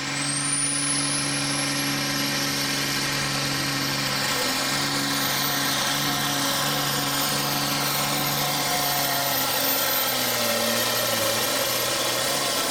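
Turbocharged diesel engine of an International Harvester pulling tractor running at full throttle under load as it drags the weight-transfer sled. A high turbo whistle climbs in pitch over the first couple of seconds and then holds. The engine note sags slightly near the end as the load builds.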